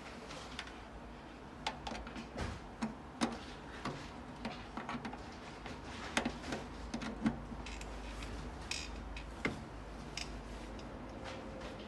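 Scattered small plastic clicks and taps as a USB cable plug is fumbled against and into the front USB port of a desktop PC case.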